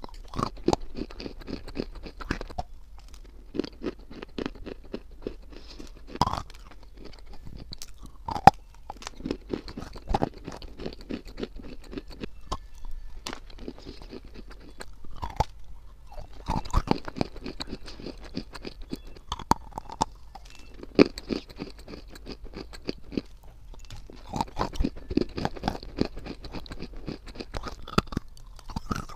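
Close-miked biting and chewing of chunks of white khadi clay: dry, irregular crunches and crackles as the clay breaks between the teeth, with a short lull about halfway through.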